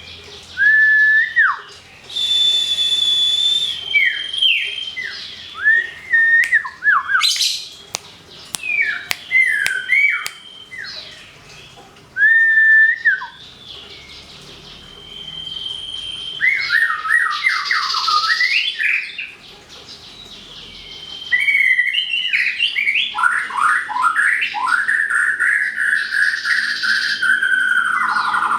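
White-rumped shama and common iora singing against each other: varied clear whistled phrases, slurred rising and falling notes and rapid note runs. Near the end comes a quick series of falling notes and then a long buzzy trill.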